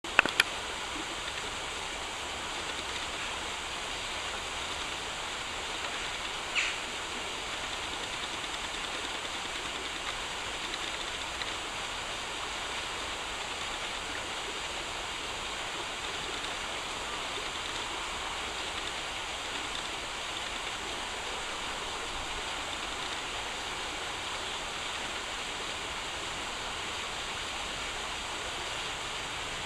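A shallow river rushing over a stony bed: a steady, even rush of moving water. A few sharp clicks at the very start and a brief sharp sound about six and a half seconds in.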